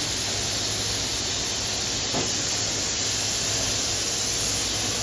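Steady loud hiss of air from bottling-line machinery, with no change in pitch or rhythm.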